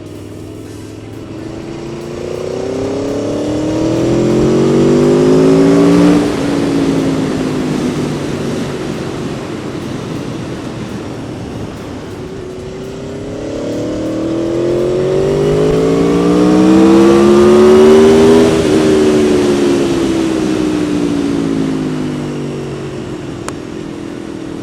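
Aprilia Tuono's 1000 cc V4 engine as the motorcycle rides past twice. Each time the engine note climbs in pitch and loudness as it comes near, then drops in pitch and fades as it goes by: about six seconds in and again around eighteen seconds.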